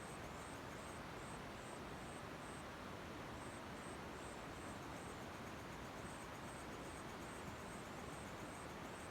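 Night insect and frog chorus after rain: a cricket chirps in short, high-pitched pulses about three times a second, pausing twice, over a steady hiss-like background.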